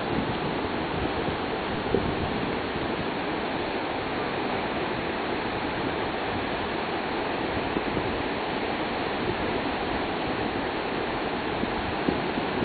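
Ocean surf breaking on a sandy beach: a steady, even wash of wave noise, with a brief bump of wind on the microphone about two seconds in.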